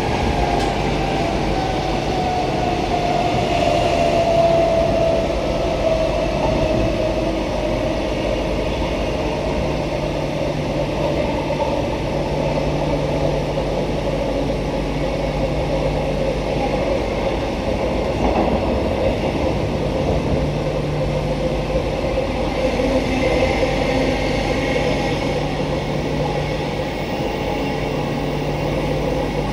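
Queensland Rail electric multiple unit (EMU) under way, heard from inside the passenger car: steady running noise with a whine that falls in pitch over the first few seconds and then holds steady, over a low hum.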